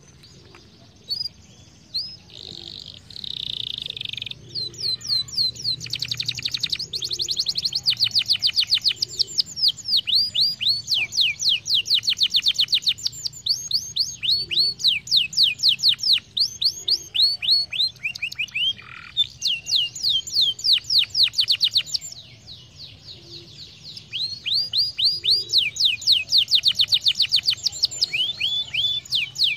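Domestic canary singing long, rapid trills of quickly repeated high sweeping notes. The song pauses briefly near the start and again about two-thirds of the way through.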